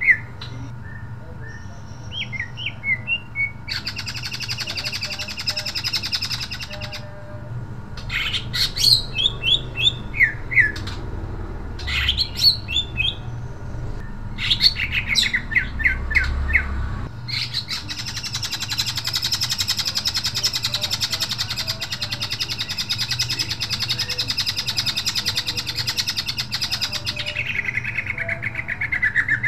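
Male green leafbird (cucak ijo) singing loudly: bouts of quick downward-sweeping whistles broken by dense, buzzing rattles, a short one about 4 seconds in and a long one from about 17 seconds that trails off into a falling slur near the end.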